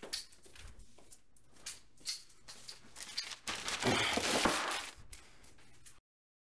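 Rustling and scattered clicks, with a louder burst of rustling about four seconds in; the sound then cuts off abruptly.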